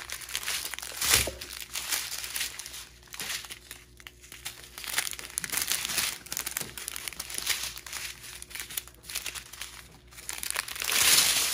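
Small clear plastic bags of diamond painting drills crinkling as they are handled and laid out in rows, in irregular rustles, loudest about a second in and near the end.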